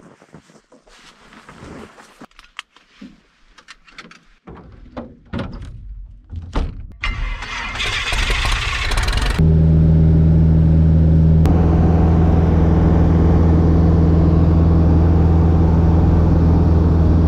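Piper Super Cub's engine being started by hand-propping: a few knocks and thunks as the propeller is pulled through, then, about nine seconds in, the engine catches and runs loud and steady.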